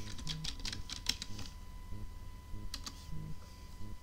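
Typing on a computer keyboard: a quick run of keystrokes for about a second and a half, then a single keystroke a little later.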